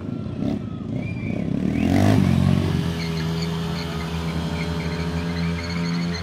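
Motorcycle engine revving: it rises about two seconds in, then is held at high revs with a steady tone while the rear tyre spins in a burnout.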